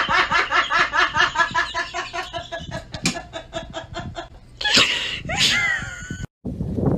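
A person laughing hard in rapid, high-pitched pulses that fade away over the first few seconds. About five seconds in comes a short, loud, shrill squeal with falling pitch, and then the sound cuts off abruptly.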